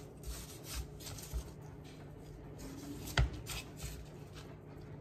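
Quiet handling sounds of seasoning meat: barbecue rub shaken from a shaker bottle and gloved hands patting and turning short ribs on a cutting board, in soft scattered taps and scrapes, with one sharper knock a little after three seconds in.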